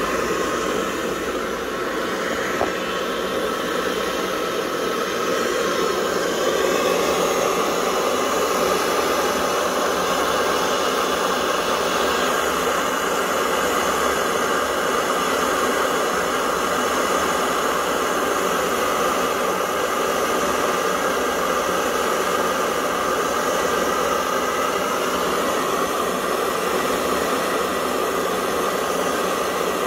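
Pressurised kerosene stove burner burning used cooking oil, its flame giving a steady hiss.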